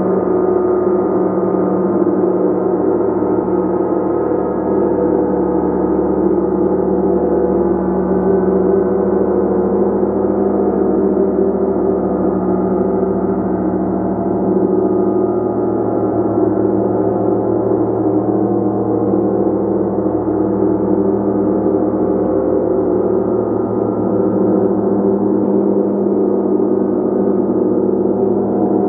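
A gong played continuously, making a dense, sustained wash of many overlapping tones. It holds a steady level, with no single strike standing out.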